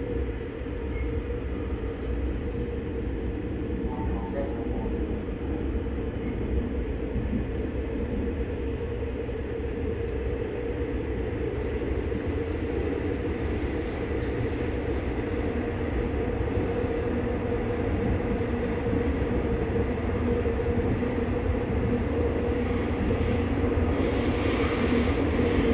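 Seoul Metro Line 9 subway train running, heard from inside its rear trailer car, which has no traction motors: a steady rumble of the wheels on the rails with a steady hum, growing gradually louder.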